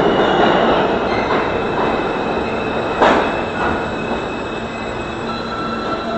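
R160 New York City subway train pulling into an underground station and slowing: a loud steady rumble of wheels on rail with a thin high wheel squeal. A single sharp bang comes about halfway through, and a steady whine sets in near the end as it brakes.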